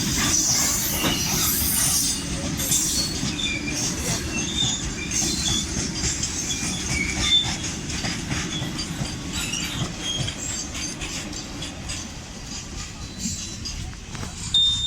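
Freight train wagons rolling past, a steady low rumble of wheels on rail with short high-pitched wheel squeals and clicks over it, easing a little near the end.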